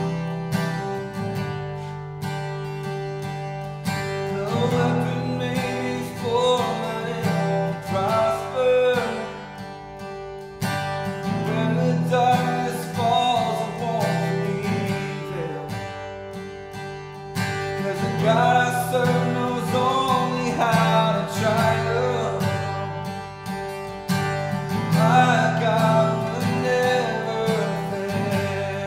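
Acoustic guitar strummed as accompaniment to a man singing a slow worship song. His voice comes in about four seconds in, in phrases with short breaths between them.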